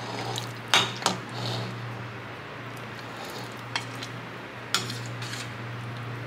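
Metal ladle clinking against a stainless steel soup pot and a ceramic bowl as chicken broth is served: two sharp clinks close together about a second in, then two more, a second apart, in the middle. A steady low hum lies underneath.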